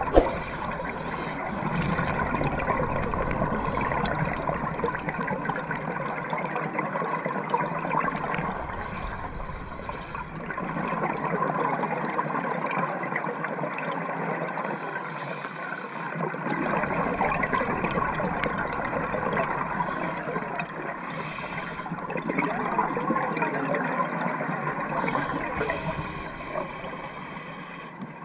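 Underwater recording of a diver breathing through a regulator: exhaled air bubbles out in a gurgling rush about every four seconds over a steady underwater hiss.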